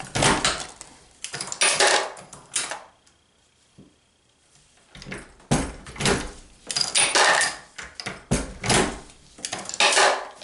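Hornady Lock-N-Load progressive reloading press being cycled to finish the last few 9mm rounds: bursts of metallic clanking and clinking, with a pause of about two seconds in the middle.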